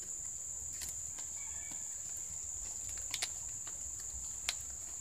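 Coconut palm leaf strips crackling and snapping in short sharp bursts as they are woven into a basket, a pair of them about three seconds in, over a steady high-pitched insect drone. A faint bird call sounds briefly early on.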